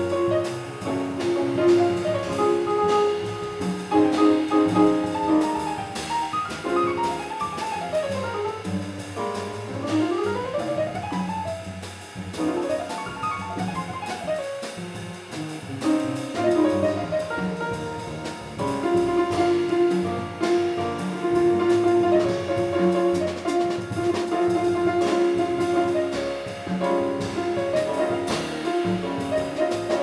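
Small jazz band playing live: Steinway grand piano, double bass and drum kit with cymbals, with a melody that runs in quick rising and falling lines at first and settles on long held notes later on.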